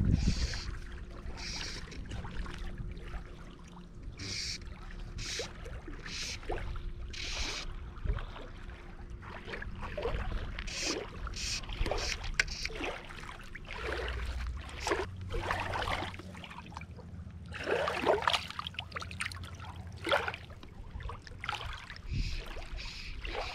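Small waves lapping and splashing irregularly against a rocky lakeshore, with a low rumble underneath.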